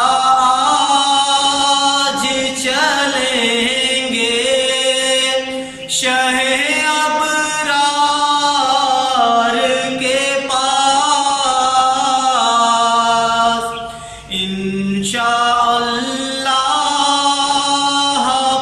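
A young man sings an Urdu naat solo and unaccompanied, holding long notes that glide and waver in ornaments. He pauses briefly for breath about six and fourteen seconds in.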